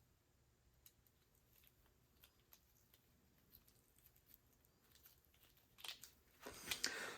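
Near silence, then a few faint small clicks and scrapes in the last second and a half: fine wire and small carburetor parts being handled while a thin wire strand is worked through the main jet.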